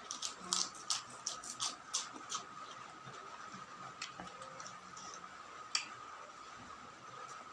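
Close-up chewing of crunchy food: a quick, irregular run of crisp clicks over the first two and a half seconds, then a few scattered ones. A steady high tone runs underneath.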